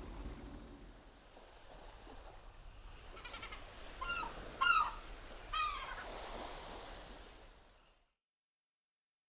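Geese honking, four short calls between about three and six seconds in, over a steady background noise that fades out near the end.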